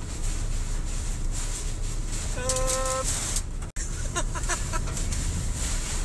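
Tornado-force wind and heavy rain battering a truck, heard from inside the cab: a loud, steady rush with deep buffeting. About two and a half seconds in, a short held cry stands out above it, and a few brief voice fragments come near the end.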